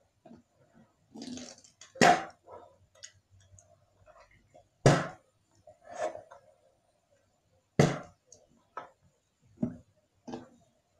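Sharp knocks and bumps of the camera being handled: three loud ones about three seconds apart, then softer, quicker ones near the end.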